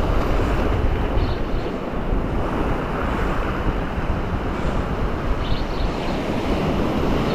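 Sea surf breaking and washing over shoreline rocks, with wind buffeting the microphone.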